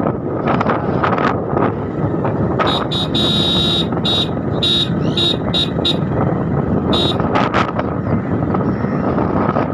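Steady vehicle traffic noise with repeated short, high toots, like horns sounding.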